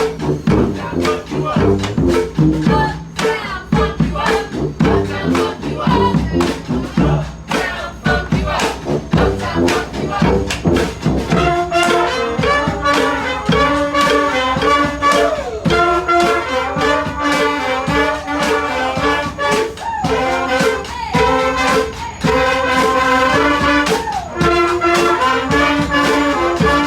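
Street band of brass horns and drums playing a lively tune, with drum hits throughout. The horns come in strongly about eleven seconds in, playing a melody with some sliding notes.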